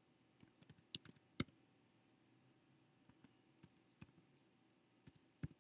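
Computer keyboard being typed on, about a dozen faint, irregularly spaced keystrokes as a password is entered.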